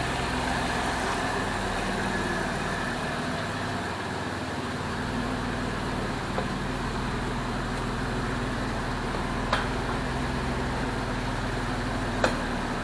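Chrysler 3.7 L V6 in a 2002 Jeep Liberty idling steadily after an engine swap, with a couple of faint clicks. The engine runs smoothly at idle with the check engine light cleared and the radiator fan not yet kicked on.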